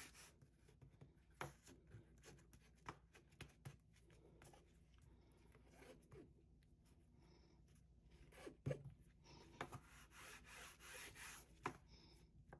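Faint rubbing and scraping of a bone folder and fingertips smoothing glued bookcloth down over book board, with scattered light taps and clicks and a longer stretch of rubbing near the end.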